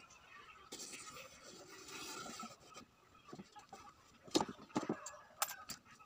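Pencil scratching across a plywood board as a homemade stick compass marks out the circular woofer cut-out on the speaker baffle. A few sharp knocks come near the end.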